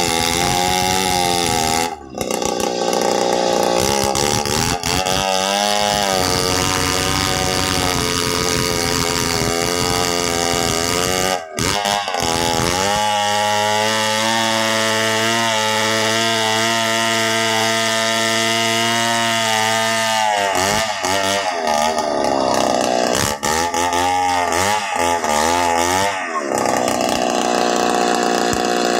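Two-stroke chainsaw at high revs ripping lengthwise through a felled acacia log, its engine pitch wavering as the chain bogs and frees in the cut. The engine note dips briefly about two seconds in and again near twelve seconds, then holds steadier for several seconds in the middle.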